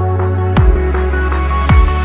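Electronic dance music with a heavy bass line and deep kick-drum hits that drop in pitch.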